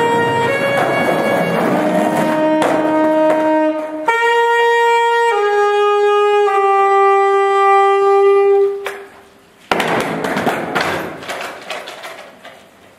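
Saxophone playing a slow line of long held notes, the last one held for a couple of seconds and ending about nine seconds in. A click follows, then a few seconds of fading noise.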